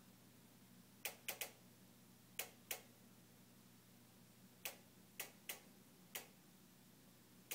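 A JennAir stove ticking on its own: about ten short, sharp clicks at uneven intervals, some coming in quick pairs or threes. The ticking is a fault that repeated repair visits have not cured.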